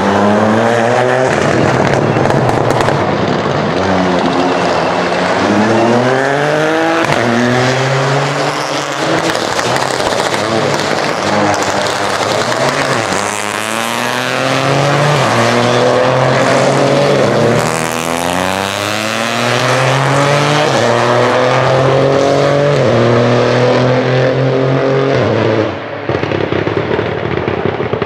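Rally car engines revving hard through the gears as the cars pass, the pitch climbing and dropping at each shift. First comes a Ford Fiesta Rally4's three-cylinder turbo engine, then a second rally car about halfway through. The engine sound falls away near the end.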